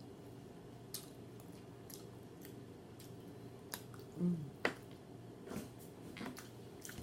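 A person chewing a cheeseburger with open-mouthed smacking: scattered sharp mouth clicks, the loudest a little past four and a half seconds in, with a brief vocal sound just before it.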